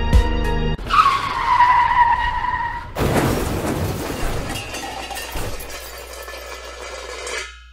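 Car-crash sound effect: a tyre screech that falls slightly in pitch for about two seconds, then a sudden crash with shattering glass that fades away over several seconds. A few notes of background music end just before the screech.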